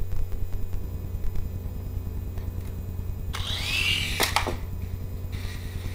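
Small electric RC helicopter's motor and rotor buzzing steadily in flight, with a brief louder rush of noise and a sharp click about three and a half to four seconds in.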